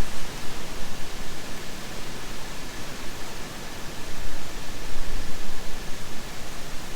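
Steady hiss of rain falling, with a low rumble underneath that swells and fades.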